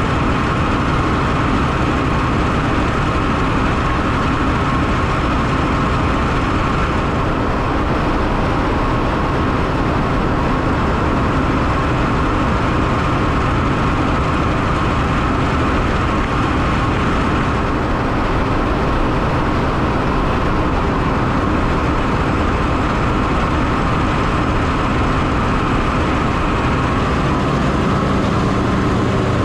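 Ship's engine-room machinery running: a loud, steady drone with a constant hum.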